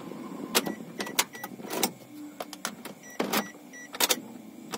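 A run of sharp clicks, roughly one every half second to second, with short high electronic beeps between them, from a Daihatsu Terios's ignition area as a hand works the flip key in the switch.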